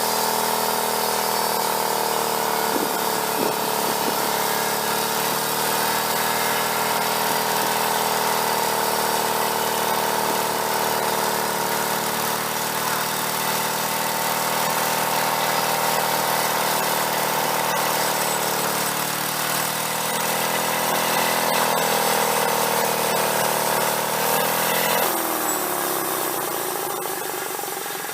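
An engine running steadily, its speed wavering a little. About 25 seconds in it drops sharply in speed and the sound begins to fade, as when the throttle is pulled back.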